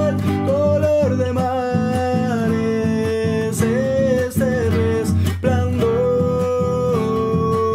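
A man singing a slow melody with long held notes, accompanying himself on a strummed nylon-string classical guitar: a Colombian Andean bambuco.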